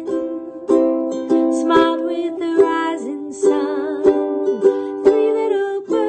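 A woman singing to a strummed stringed-instrument accompaniment, the strums coming at a steady rhythm.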